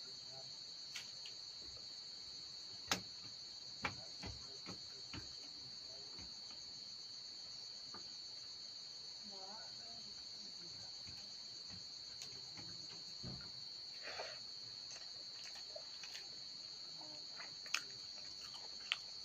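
Crickets chirring steadily, with scattered short clicks and taps from rice being mixed by hand in a steel bowl and eaten.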